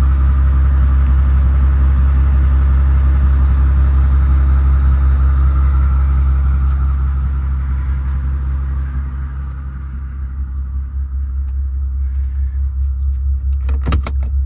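Mercedes-AMG G65's twin-turbo V12 idling: a steady low rumble that drops in level about two-thirds of the way through. Near the end come a few sharp clicks as a plastic outlet cover is flipped open.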